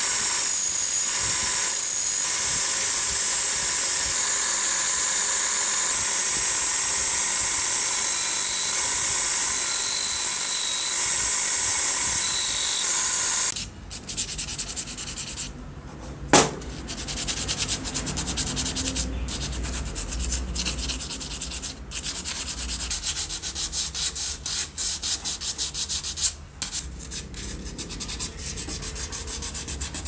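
Bench buffing wheel spinning with a steady hiss as a brass telephone mouthpiece grille cap is polished against it. About 13 seconds in, this gives way to hand-sanding of plastic handset caps: quick, uneven scratchy rubbing strokes, with one sharp click a few seconds after the change.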